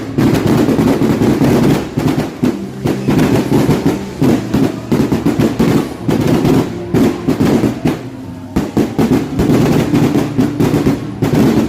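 Fireworks going off in a rapid, continuous string of bangs and crackles, with music playing underneath; the barrage stops abruptly at the end.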